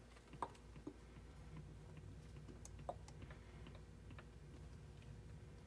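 Very faint sound of motor oil being poured from a plastic jug through a funnel into the engine, with a few soft, scattered clicks and ticks over a low hum.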